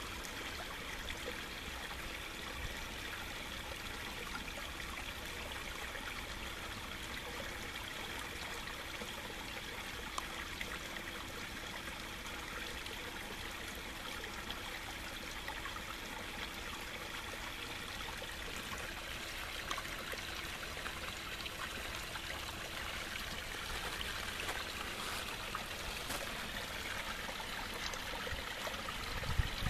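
Steady trickling and splashing of running water into a pond, with a faint steady hum under it. A few low bumps come near the end.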